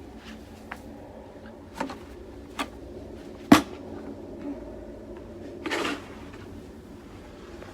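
Snow shoveling: a few sharp knocks of the shovel, the loudest about three and a half seconds in, and one short scrape near six seconds.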